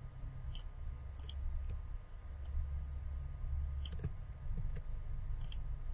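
A handful of faint, irregularly spaced clicks from a computer mouse and keyboard over a low, steady hum.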